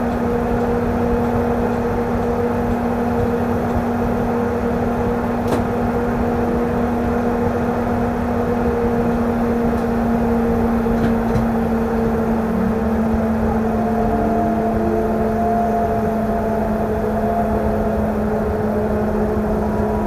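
Driver's cab of a DB Class 423 S-Bahn electric multiple unit: steady electrical hum over a low rumble, with a short rising whine a little past halfway as the train starts to pull away from the platform.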